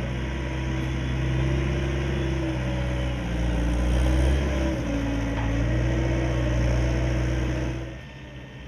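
Heavy machine engine running, its pitch wavering slightly up and down and swelling louder midway, then cutting off abruptly near the end.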